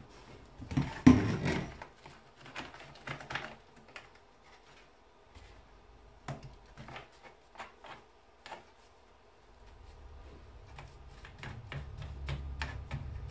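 A small brush dabbing whitening solution onto a deer skull and knocking against the bone and the plastic tub: scattered light clicks and taps, with a louder clatter about a second in. A low rumble builds over the last few seconds.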